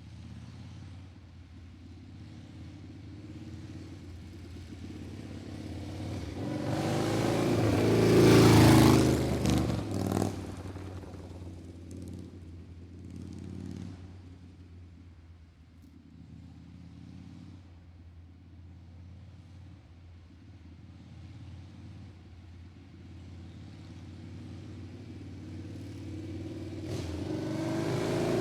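Motor vehicle engine passing by: it grows steadily louder for about eight seconds, peaks, drops away quickly and fades. A second vehicle approaches near the end.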